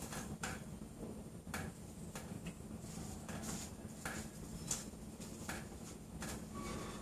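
Quiet footsteps on a wet garden path: soft, irregular ticks about once a second over a faint steady low hum.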